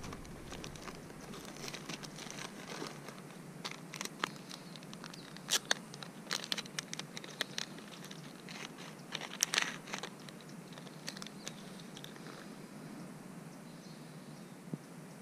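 Plastic soft-bait packet crinkling and crackling as hands handle it. The crackles come thickest in the middle and thin out near the end.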